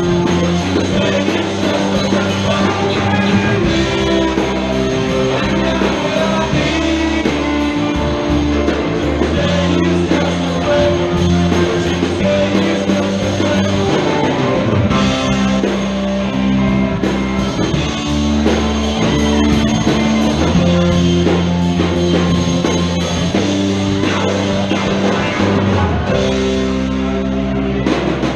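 Live rock band playing a song: drum kit, bass guitar, keyboard and electric guitar, with a lead vocal sung over them.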